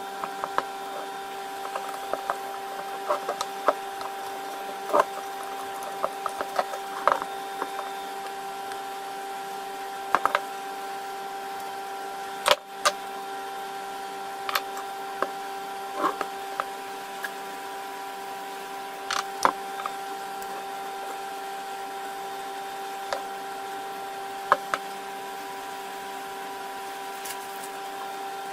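Irregular clicks, clinks and knocks of small tool and part handling on a workbench, typical of taking apart an old electric drill, over a steady background hum. The sharpest knock comes about halfway through.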